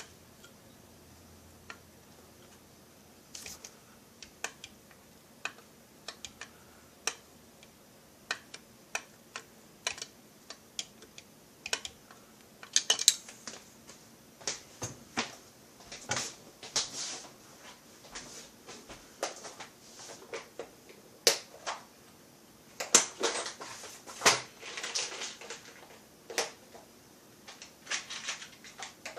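Irregular sharp metal clicks and taps of hand tools and case screws as the screws are fitted and driven into a chainsaw crankcase. The clicks are sparse at first and come thicker and louder about halfway through.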